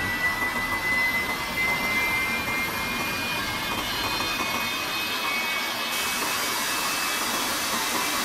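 Jet engine running: a steady rushing roar with a high whine that slowly rises in pitch.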